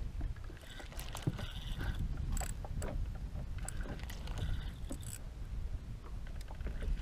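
Steady low wind and water noise on a fishing-rod-mounted camera, with scattered clicks and knocks from the rod and reel as the line is worked after a cast.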